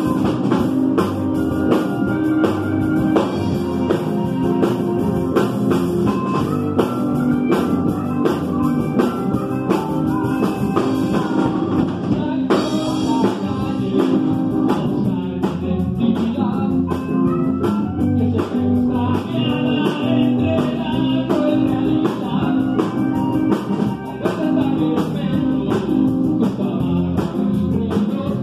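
Live rock band playing: drum kit, electric bass and electric guitar, with a wavering lead melody line over them.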